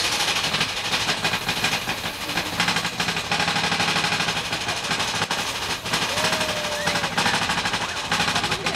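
Mine-train roller coaster cars running along the track with a fast, continuous rattling clatter. A rider's voice is heard briefly about six seconds in.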